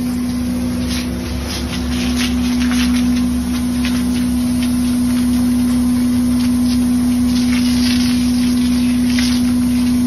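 Water spraying from a hose wand onto a concrete mixer truck: an uneven hiss and spatter over a steady machine hum.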